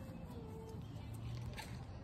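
A puppy's faint whine, trailing off and falling slightly in pitch, over a low steady rumble.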